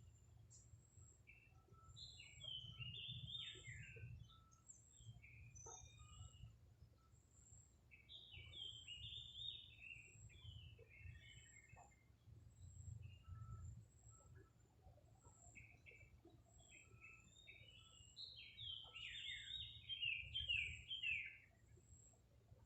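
A songbird singing three phrases of quick, high chirping notes, the last phrase near the end the loudest. The singing is faint, over a low rumble.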